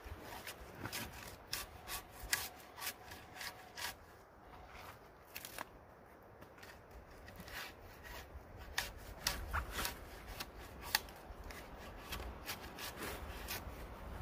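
Bark being scraped and stripped off a freshly cut log with a hand tool: a quick, irregular run of short scrapes and tearing strokes.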